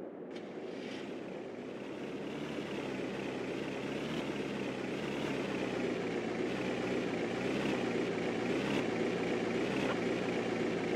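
Vehicle engine running steadily, gradually growing louder.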